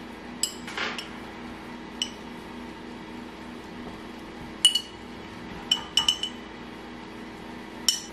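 A metal spoon clinking against a glass canning jar and a stainless steel pot while pickles are spooned out: about half a dozen sharp, ringing clinks, several close together around six seconds in.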